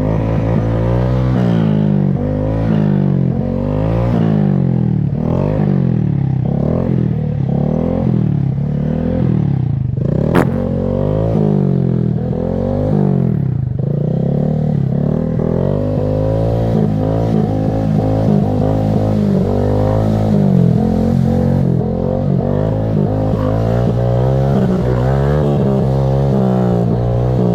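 2022 Honda Grom's single-cylinder engine revving up and dropping back again and again as the throttle is worked. A single sharp click about ten seconds in.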